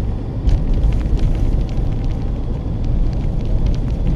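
Strong gusty wind buffeting the microphone: a heavy, uneven low rumble with scattered faint ticks. It is the gusting wind that arrives ahead of a thunderstorm.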